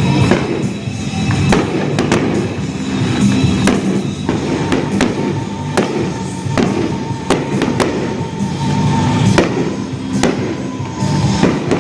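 Fireworks going off in a stadium display, many sharp bangs and crackles at irregular intervals, with loud music playing alongside.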